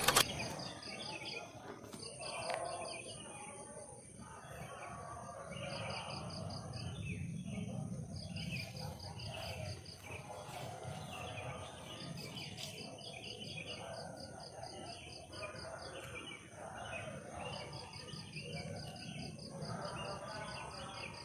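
Forest ambience of insects: a steady high-pitched buzz under trains of rapid chirps, several a second, that recur every couple of seconds, with other irregular animal calls mixed in.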